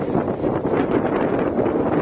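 Wind rushing over the microphone at the open door of a moving train, over the steady rumble of the train running on the rails.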